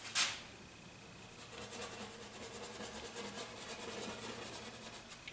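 Paintbrush working oil paint on a palette. It gives a short rub at the start, then from about a second and a half in, a run of quick, even scratchy strokes.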